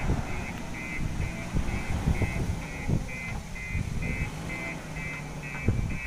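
JCB backhoe loader's diesel engine working, with several sharp clanks and knocks as it digs river sand. A reversing alarm beeps steadily about twice a second throughout.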